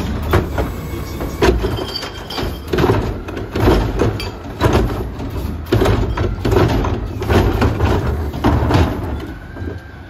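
Garbage truck's diesel engine idling while a plastic wheeled cart is emptied into the carry can and tipped by the can's cart tipper, with repeated knocks and bangs of the cart and falling trash against the steel can. A brief whine sounds near the end as the cart comes back down.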